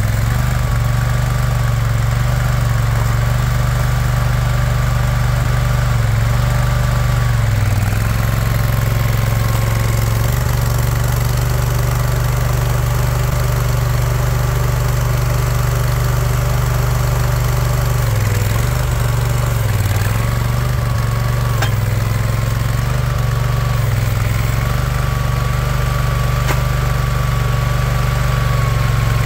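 Boxer 427 mini skid steer's Kohler 27 hp Command Pro V-twin engine running steadily, its hum dipping briefly a few times as the machine works. A faint wavering high whine runs above the engine.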